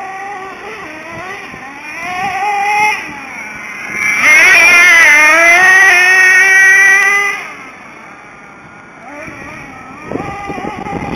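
HPI Savage nitro RC truck's small two-stroke glow engine revving at high, wavering pitch as it drives across grass. It is loudest for about three seconds midway, then fades away, and revs up again near the end.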